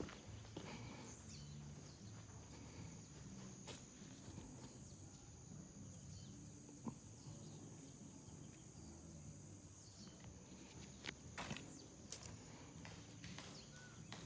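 Faint footsteps and rustling through dry undergrowth, with scattered light clicks and snaps, a cluster of them near the end, over a quiet background with a steady high whine.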